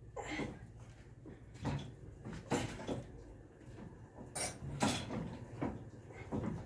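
An old Ruston Hornsby engine being turned over by a hand crank bar, not yet firing: irregular metallic clanks and scrapes from the crank and moving parts.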